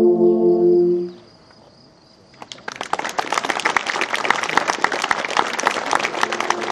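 An alphorn ensemble holds a final chord that stops about a second in. After a short pause, an audience starts to applaud, and the clapping keeps on.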